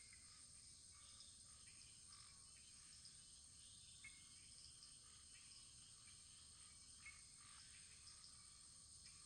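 Faint wood fire crackling: a steady soft hiss with a few small, irregular pops.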